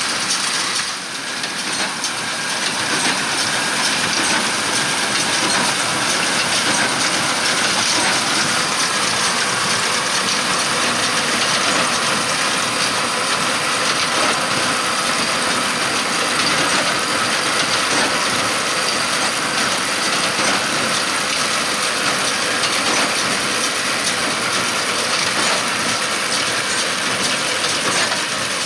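Fendt 724 Vario tractor running under load while pulling a Massey Ferguson 2170 large square baler, which clatters steadily as it bales straw. The noise dips briefly about a second in and then holds steady.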